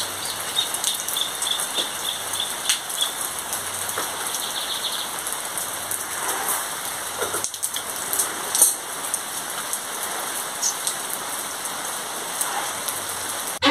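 Steady rain falling on leaves and ground, with scattered drips. A bird gives a quick series of short, high chirps during the first few seconds.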